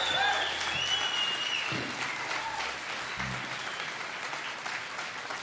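Audience applauding and cheering at the end of a live song, with a few high whoops in the first couple of seconds; the clapping eases off slightly toward the end.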